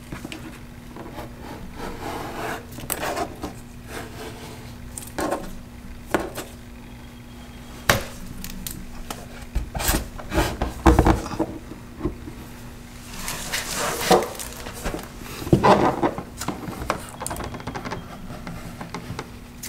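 Hands handling a plastic trim piece against a car's lower door panel: scattered taps and knocks with rubbing and rustling, as the piece is pressed on and the red liner is worked off its adhesive tape. A faint steady hum runs underneath.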